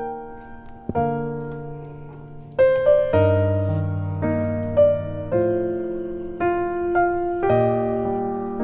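Slow background piano music: notes and chords struck about once a second and left to fade.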